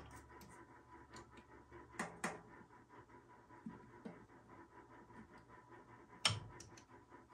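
Faint scratching and small clicks of multimeter test probes and wires being handled at a furnace transformer's terminals. Sharper clicks come about two seconds in and again a little after six seconds, the later one the loudest.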